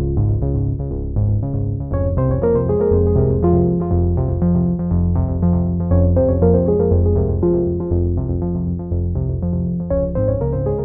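Background music with a steady pulsing beat and sustained bass notes.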